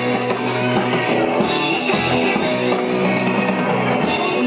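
Live rock band playing, with guitar and drums over steady held notes.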